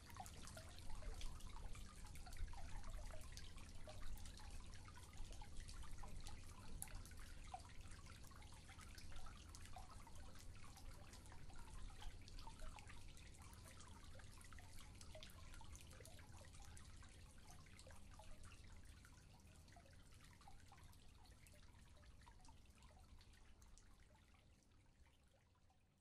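Garden aquarium water feature trickling and dripping faintly, many small irregular drips over a low steady hum, fading out near the end.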